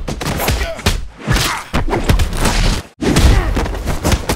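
Movie fight sound effects: a fast run of heavy punch and body-hit impacts, mixed with shouting voices, with a brief break about three seconds in.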